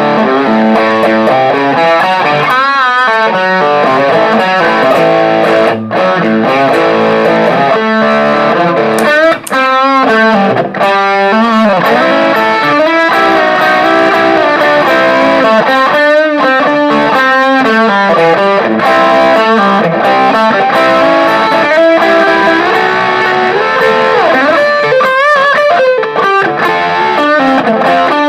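Overdriven electric guitar played through a Marshall JCM900 valve amp driven by overdrive and boost pedals, a continuous run of distorted notes and phrases. Several held notes waver with string bends and vibrato, about three seconds in, around ten seconds, around sixteen to eighteen seconds and near the end.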